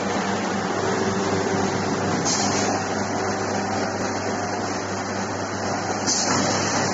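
Steady hum and whir of machinery running, with a low electrical buzz underneath and no change in pace.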